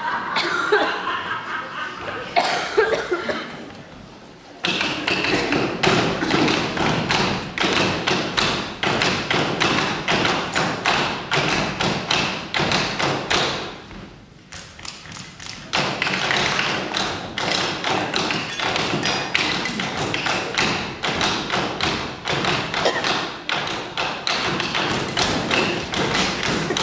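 Pens and hands tapping and knocking on a tabletop as a rhythm ensemble, a dense run of quick, overlapping taps and thuds. It starts a few seconds in, drops away briefly just past halfway, then picks up again.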